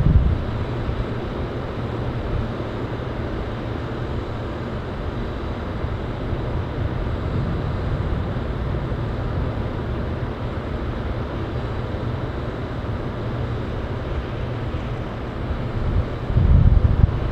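Volvo FH13 540 truck's 13-litre inline-six diesel running steadily while its side-tipping body unloads sawdust. Low wind buffeting on the microphone comes at the start and again near the end.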